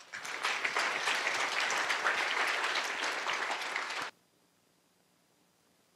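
Audience applauding for about four seconds, then cut off suddenly, leaving near silence.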